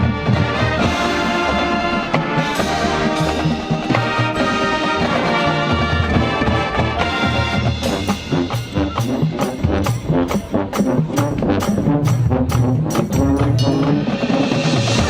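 High school marching band playing, with the brass section leading over percussion. In the second half, sharp percussion hits land about twice a second.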